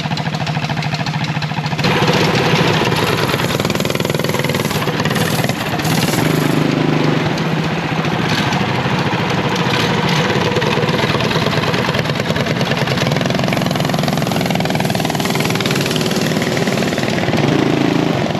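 Small single-cylinder mini bike engine running, getting louder about two seconds in and then running on steadily.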